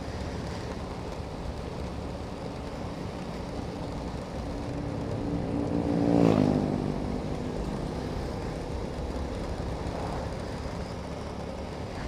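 Motorcycle ride with steady engine running and road noise. About six seconds in, the engine note rises to a peak and then drops away sharply.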